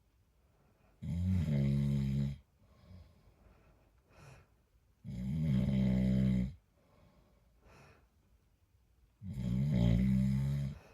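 A man snoring: three loud snores about four seconds apart, each lasting over a second.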